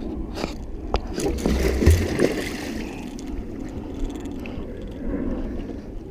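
A blue catfish thrashing at the water's surface beside a boat, with a burst of splashing loudest about two seconds in, and a few sharp knocks before it.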